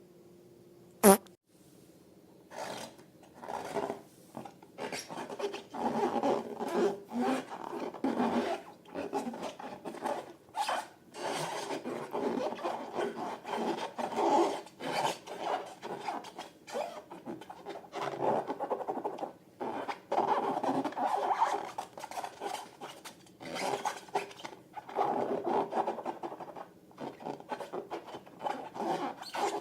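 A single sharp pop about a second in, then irregular rubbing and squishing strokes of slime being worked and mixed.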